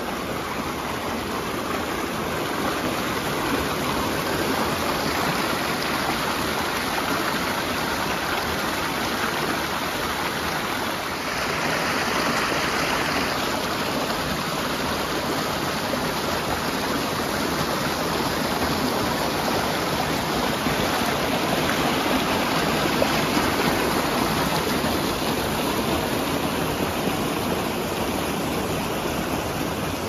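Creek water rushing and splashing over boulders and small cascades, a steady rush that sounds a little sharper for about two seconds near the middle.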